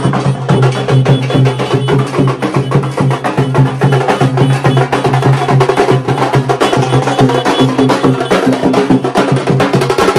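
Several large barrel-shaped dhol drums beaten with sticks in a fast, loud, unbroken rhythm, in the Nashik dhol style.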